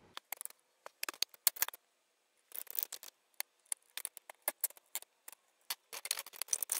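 Scattered light clicks and taps, in short clusters, of a CPU being handled: an Intel Core i9-13900K is lifted from its plastic clamshell tray and set into the motherboard's CPU socket.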